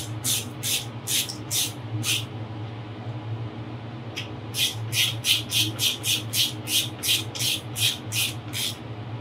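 A clamp being tightened around a well pipe with a hand tool, its screw rasping in short scratchy strokes. They come about two a second, pause for about two seconds, then resume faster at about four a second.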